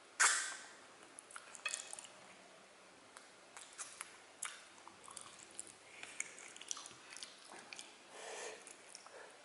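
Mouth sounds of eating spicy chicken feet: wet smacks, sucks and small clicks as skin and sauce are pulled off the bones and saucy fingers are sucked clean. The loudest smack comes about a quarter second in, and smaller ones follow irregularly.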